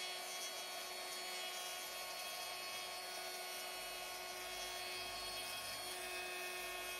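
A small motor-driven tool running steadily at one speed: an even whir with a fixed high whine that does not change.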